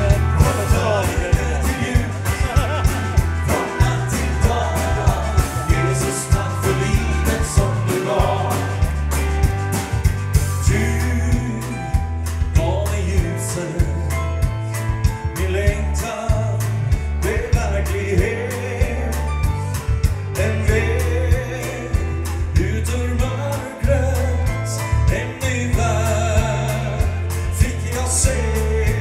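Live gospel song sung by a lead vocalist over a full band, with a steady drum beat and bass.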